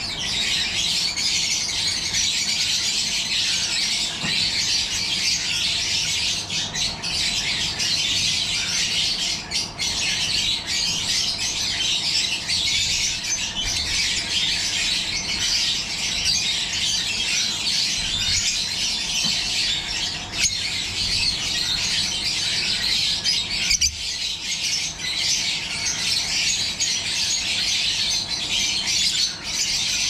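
Masked lovebirds in an aviary chattering and squawking without pause, a dense high-pitched twittering of many birds at once.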